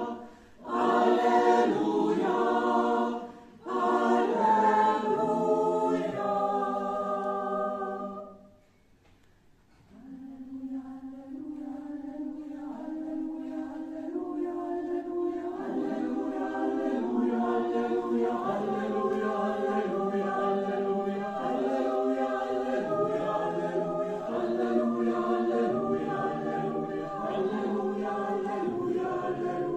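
Mixed choir of men's and women's voices singing an Alleluia a cappella. About eight seconds in, the singing stops for about a second and a half, then comes back softer and slowly grows louder.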